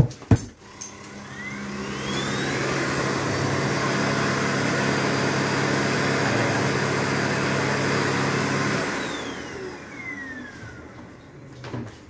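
Xiaomi Mijia dust mite vacuum cleaner switched on with a couple of clicks, its motor spinning up with a rising whine and running steadily with a low hum underneath. About nine seconds in it is switched off and winds down with a falling whine.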